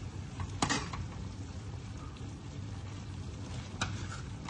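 A metal spoon scraping against a cooking pan twice, about half a second in and again near the end, as food is scooped out for plating, over a steady low hum.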